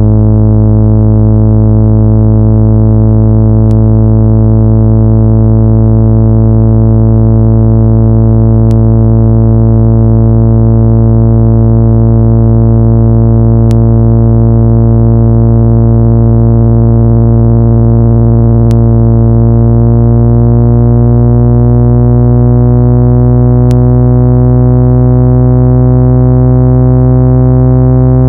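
Loud, steady, low electronic tone with many buzzy overtones, played to vibrate a phone or speaker grille and shake dust loose. Its overtones drift slightly upward in the second half, and a faint click comes about every five seconds.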